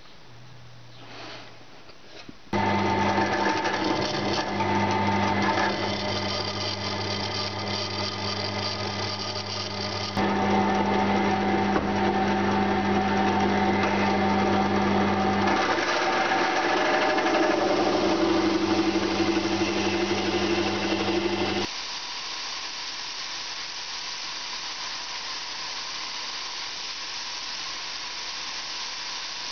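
Electric workshop machine running with a steady hum and a hiss above it, cut off abruptly several times. From about 22 s it gives way to a quieter, even hiss.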